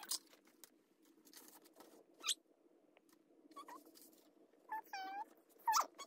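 Paper cards and envelopes being handled, rustling and crinkling in short scratchy bursts. About five seconds in there is one brief high squeak that dips and rises in pitch.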